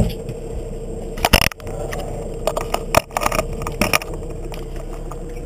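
Knocks, scrapes and rustles of an action camera being handled close up on its mount. The loudest knock comes about a second and a half in, with more between about two and a half and four seconds in, over a steady low hum.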